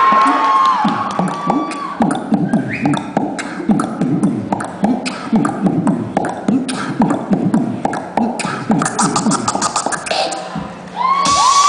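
Live beatboxing: a man making fast rhythmic clicks and deep vocal drum sounds through the hall's speakers. The crowd whistles at the start, then breaks into loud cheering near the end.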